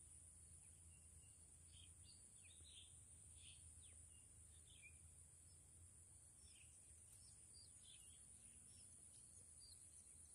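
Near silence: faint outdoor ambience with scattered small bird chirps over a steady faint high hiss.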